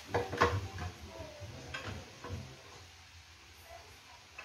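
A quick run of clicks and knocks in the first couple of seconds, the loudest about half a second in, then only faint background noise.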